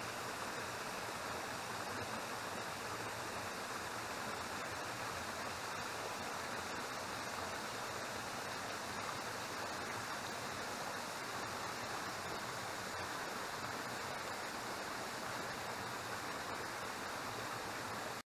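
A waterfall and stream rushing, a steady, even wash of water noise.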